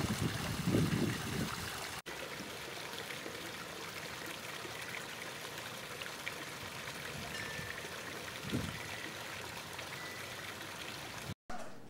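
Small garden-pond waterfall trickling and splashing steadily over rocks, with a few low rumbles in the first second and a half. The sound cuts out for an instant about two seconds in and again near the end.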